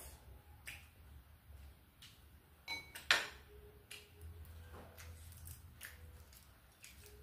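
Scattered clicks and clinks of chopsticks and spoons against ceramic bowls at a meal, with one brief ringing ping and then the sharpest clink about three seconds in.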